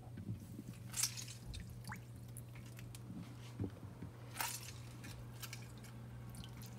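Faint drips of lemon juice into a plastic bowl of water, with a couple of brief clicks about a second in and a little past four seconds, over a steady low hum.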